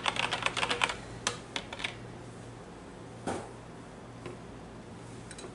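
Light, rapid clicking and tapping as a plastic pitcher of lye water and a wire whisk are handled over a crock pot, thinning after about a second to a few scattered taps, over a low steady hum.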